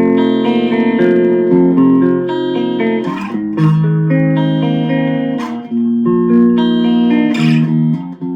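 Electric guitar, an Epiphone Special II, played through a BOSS Katana Mini amp on its clean channel with the tone selector on mid: a run of chords, each left to ring for a second or two, with a few sharper picked attacks.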